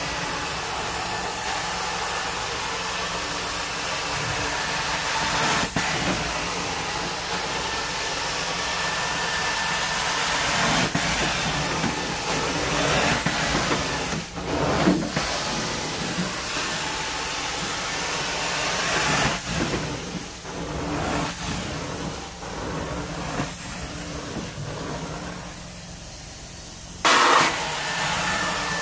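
Carpet-cleaning extraction wand pulling water and air through wet carpet: a steady rushing hiss of vacuum suction that rises and falls as the wand is stroked back and forth. It goes quieter for a couple of seconds near the end, then surges back loud suddenly.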